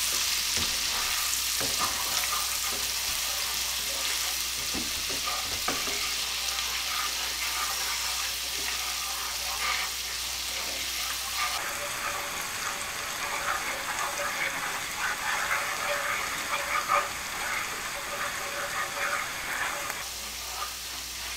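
Minced garlic and sage sizzling steadily in melted butter in a skillet as they are sautéed until the garlic browns, with a wooden spatula stirring and scraping against the pan in small clicks.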